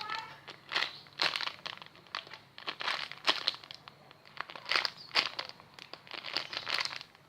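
Plastic crinkling and rustling in irregular short bursts, several a second at times, as a squishy toy's plastic wrapping is handled.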